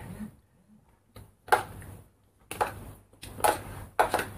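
A spoon scraping and knocking in a small plastic bowl: four short strokes about a second apart, each with a brief scrape after it.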